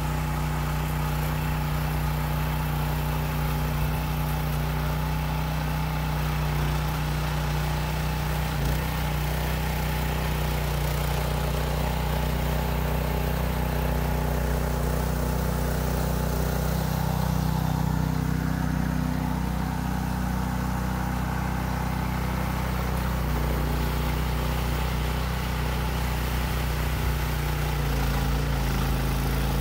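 Small gasoline engine of a rear-tine garden tiller running steadily under load as its tines churn sand into clay soil.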